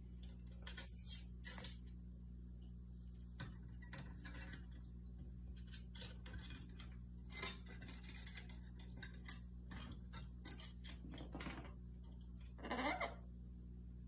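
An Amazon parrot's claws and beak clicking and tapping on a metal air-vent grille as it climbs and clings to it, over a steady low hum. One louder, brief scraping burst comes about a second before the end.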